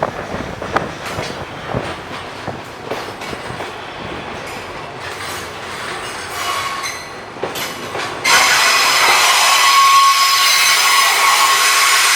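Freight train rolling past, its wheels clacking over rail joints. About eight seconds in, a loud, steady wheel squeal sets in and holds.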